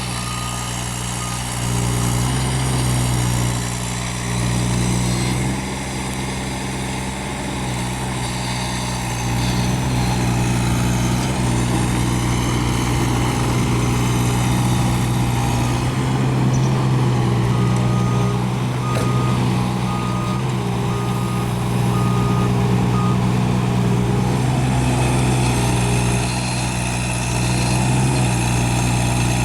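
Kubota U-17 mini excavator's diesel engine running steadily, its loudness stepping up and down as the machine works. A short high beep sounds at the start, and a run of beeps about once a second comes around two-thirds of the way in, likely the machine's travel or warning alarm.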